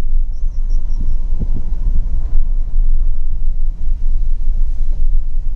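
Steady low rumble of riding along in a moving vehicle, road and engine noise with no clear rhythm or change.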